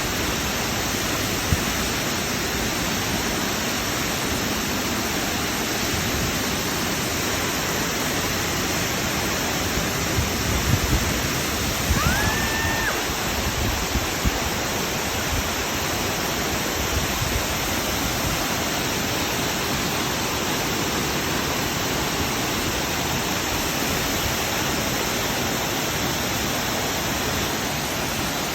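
Khlong Lan Waterfall's water falling, a steady full rush of noise. About halfway through, a brief whistle-like tone rises and holds for about a second, with a few low knocks just before it.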